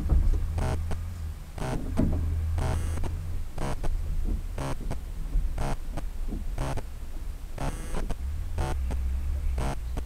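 Car engine idling as a steady low hum, heard from inside the car, with a short pulse repeating about once a second.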